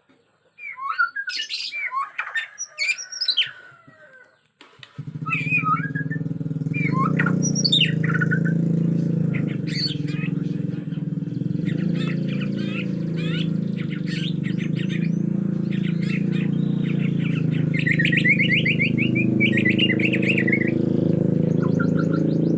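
Bornean white-rumped shama calling and singing in loud, aggressive bursts of squawks and whistled phrases, with a fast trill near the end. From about five seconds in a steady low hum runs underneath and is the loudest sound.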